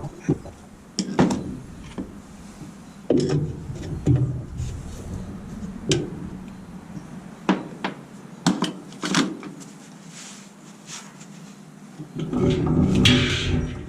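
Scattered knocks, clicks and clatter of hand tools on the agitator bolt and parts of a Whirlpool top-load washer during disassembly, about ten sharp strikes in all. A longer, louder rubbing and scraping starts about a second before the end.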